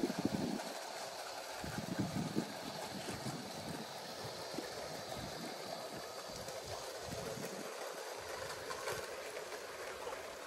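Tinplate O gauge model train running on 3-rail track: a steady rumble of the electric locomotive and its wheels on the rails, with a few low thumps in the first two seconds.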